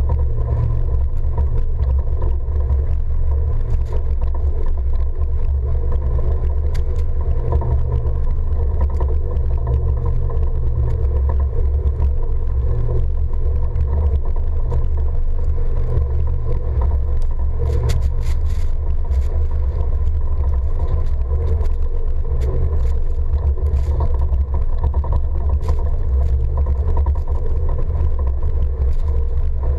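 Truck driving through deep snow: a steady low rumble of the engine and tyres pushing through the snow, with a few faint clicks around the middle.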